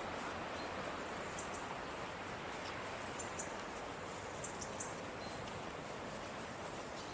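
Outdoor background: a steady even noise, with a few faint short high clicks, three of them close together a little past the middle.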